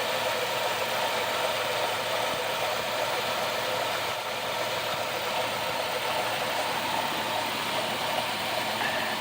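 Pickup truck engine idling steadily, its newly fitted belt running quietly.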